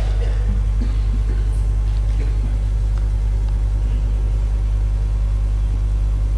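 Steady low electrical hum on the assembly hall's sound feed, with a thin high whine above it and only faint room stirrings.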